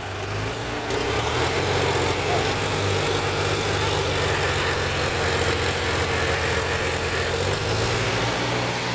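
Tractor diesel engine running steadily, its note shifting slightly near the end.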